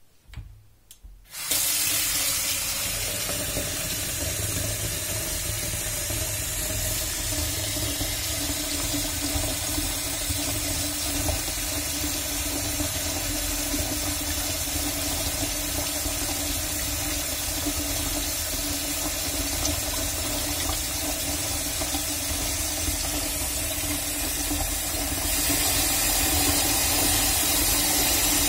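Kitchen tap turned on about a second and a half in, then running steadily: the stream pours into a glass vase standing on a saucer in a stainless steel sink and overflows, splashing into the sink. It grows a little louder near the end.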